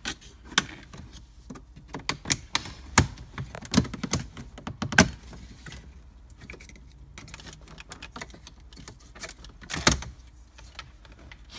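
Plastic dash trim clips on a 2015 Cadillac Escalade clicking and snapping as a plastic pry tool levers the trim panel loose: a series of sharp, uneven clicks, the loudest about 3, 5 and 10 seconds in.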